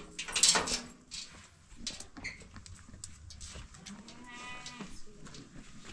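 Farm animals calling: a loud call about half a second in and a shorter, higher-pitched call about four seconds in, with scattered clicks between.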